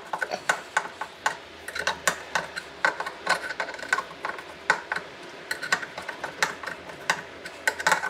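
Screwdriver turning the tightening screws of a kitchen sink basket strainer from below, with the strainer drawn nearly tight: a run of sharp metallic clicks and ticks, a few a second at uneven intervals.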